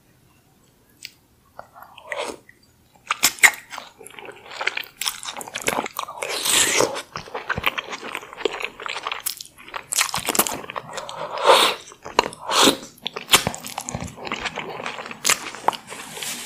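Close-up chewing and wet mouth sounds of eating soft-boiled eggs in sauce, a dense run of sticky clicks and smacks that starts about three seconds in after a nearly quiet opening.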